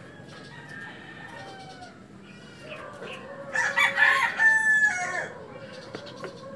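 A rooster crows once, a single long call lasting under two seconds that starts about three and a half seconds in, with fainter calls around it.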